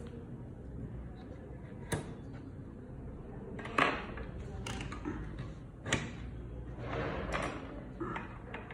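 Plug-in components and jumper leads being pushed into the sockets of a circuit-trainer board: several short, sharp plastic-and-metal clicks spaced a second or two apart, with soft handling noise between.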